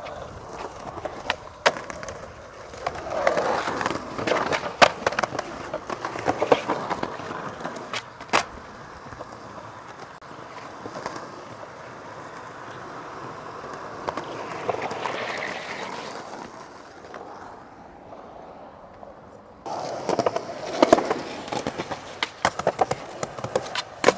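Skateboard wheels rolling on pavement, broken by sharp clacks of the board popping and landing. In the last few seconds comes a louder stretch of scraping and clacks as the board slides along a concrete ledge.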